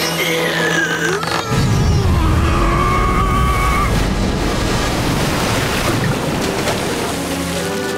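Cartoon sound effects over music: a falling, gliding tone, then from about a second and a half in a loud, low rumbling rush of noise that runs on, with a held tone sounding above it for a couple of seconds.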